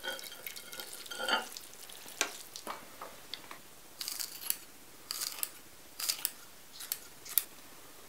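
Kitchen handling sounds: a few light clinks and taps of utensils on dishes, then a run of short scraping strokes, about one a second.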